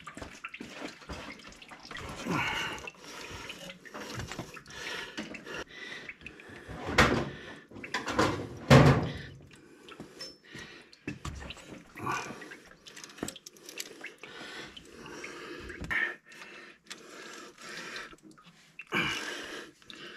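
Ratchet wrench loosening the water pump bolts: a run of short ratchet clicks and metal clinks, with two louder knocks about seven and nine seconds in, and a light drip of draining coolant.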